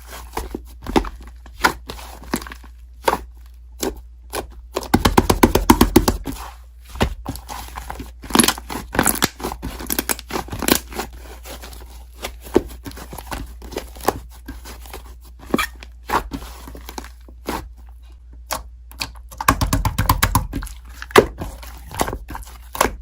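Slime being squished and pressed by hand, giving a run of sharp pops and clicks. There are two stretches of dense crackling, about five seconds in and again near the end.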